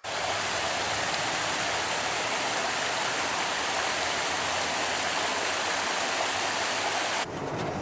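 Shallow mountain creek running over rocks and a small cascade, a steady rushing close by. Near the end it cuts off abruptly, giving way to a quieter, lower rumble.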